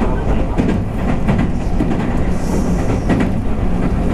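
Running noise inside a JR West 221 series electric multiple unit motor car: a steady rumble of wheels on the rails with short clicks of the wheels crossing rail joints. A brief hiss sounds about two and a half seconds in.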